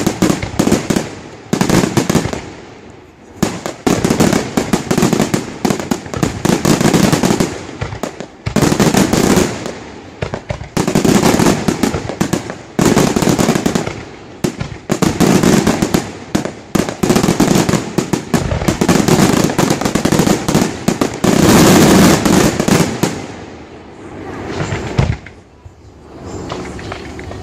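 Aerial firework shells launching and bursting in a display: dense, rapid bangs and crackle in waves about every two seconds, thinning out near the end.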